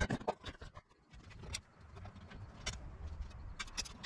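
Light clicks and knocks of an aftermarket intake's airbox panels and small bolts being handled and fitted together, the busiest in the first second, over a low rumble.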